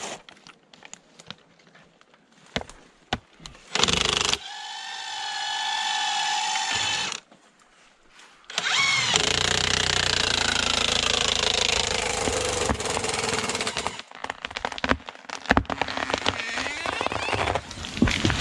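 Chainsaw engine revving with a steady high pitch for about three seconds, stopping abruptly, then running loud again with its pitch falling. Scattered knocks and clicks come before it starts.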